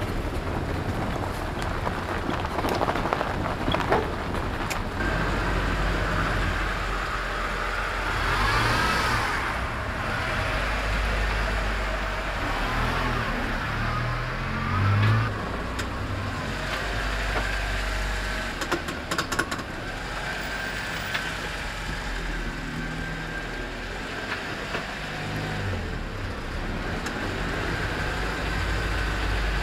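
Car engine and tyre noise in a narrow street, swelling as a car passes close by about halfway through, over a steady background of street noise. A few sharp clicks a little later.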